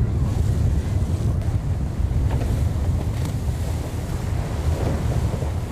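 Strong wind buffeting the microphone, a steady low rumble, over the rush and splash of choppy sea water around a boat under way.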